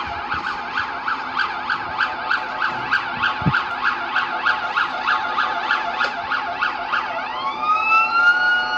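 Dubai Police car siren in a fast yelp, its pitch sweeping up and down about four times a second. About seven seconds in it switches to a slow rising wail that climbs and levels off on a steady high tone.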